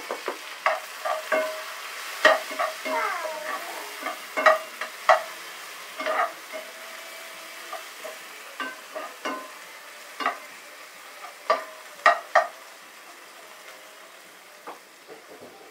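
Chopped seasoning vegetables frying in hot oil in a frying pan, with a steady faint sizzle. A metal slotted spoon stirs them, scraping and clinking against the pan at irregular moments.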